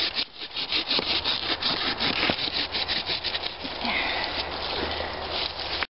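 Hand pruning saw cutting through a branch about an inch thick at its base, in quick, even back-and-forth strokes with the teeth rasping in the wood.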